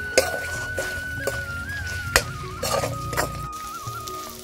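Steel ladle scraping and knocking against an iron wok as chicken pieces are stirred and fried, with several sharp scrapes. Background music with a held melody runs under it.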